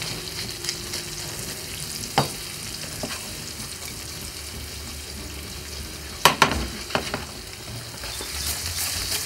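Lamb cutlets sizzling steadily in hot olive oil in a frying pan. A few sharp clinks of a utensil against the pan cut through; the loudest are two close together about six seconds in.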